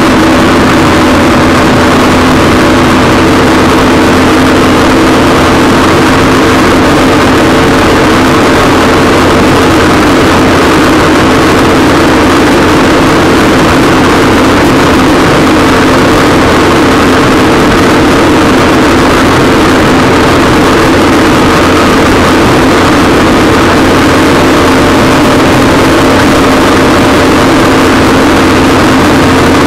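A waverunner's engine running loud and steady under way, at an even pitch that does not change.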